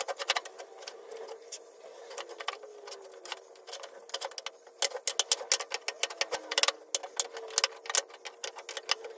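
Hardwood blocks and strips clacking and tapping against each other and the wooden crosscut sled as they are set down and shuffled into an end-grain pattern, in quick irregular clusters that are busiest about halfway through. A steady faint hum runs underneath.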